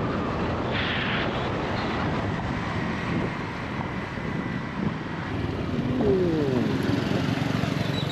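Motorbike being ridden: a steady engine and rushing road and wind noise. The engine note drops about six seconds in as the bike slows.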